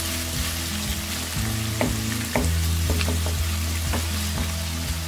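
Sliced onions sizzling in hot oil in a nonstick wok, turned over by a wooden slotted spatula, with several light knocks of the spatula against the pan. The onions have just gone translucent.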